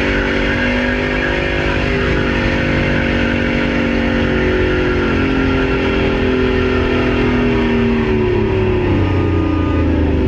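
Diesel engine running away at sustained high speed, a loud steady drone that sags slightly in pitch near the end. The turbocharger has blown apart and the engine is running uncontrolled on its own oil.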